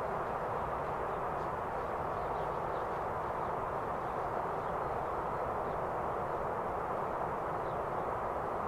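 Steady, even jet-engine roar from the Xian Y-20A transport's turbofans, holding at one level with no change in pitch. Faint short bird chirps sound over it.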